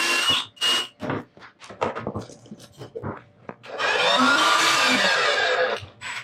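Electric power tool working wood in the shop: two short bursts with a steady whine, a string of quick knocks and taps, then a longer run of about two seconds whose whine wavers under load.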